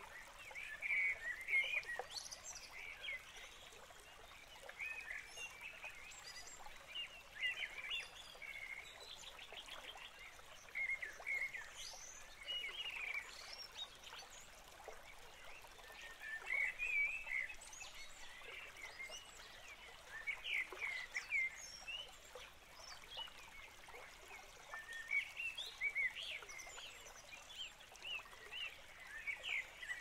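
Several songbirds chirping and singing in short, overlapping phrases, with a rapid trill about ten seconds in, over the steady hiss of a gently running stream.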